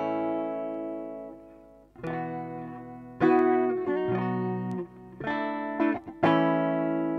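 Guitar played through a Mooer GE100 multi-effects pedal on its 'BALAD' preset, with EQ, modulation and delay on and no distortion. Five chords are strummed and left to ring, a new one every one to two seconds.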